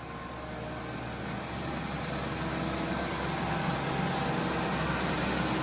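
Heavy diesel engine of earthmoving machinery running, growing steadily louder.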